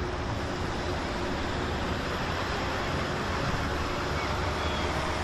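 Steady harbourside ambience: an even wash of wind and water with a low rumble underneath.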